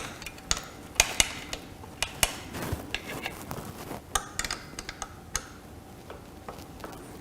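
Irregular sharp metallic clicks and ticks from working on a bicycle's handlebar stem clamp with an Allen key, in small clusters with short gaps between.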